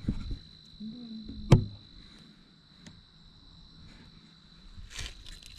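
Steady high-pitched trilling of crickets, with one sharp knock about a second and a half in.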